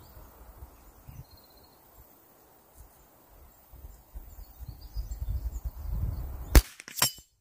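A single sharp crack of a Remington 597 .22 LR rifle firing, about six and a half seconds in, with a weaker, shorter crack about half a second after it. Before the shot there is a low wind rumble on the microphone.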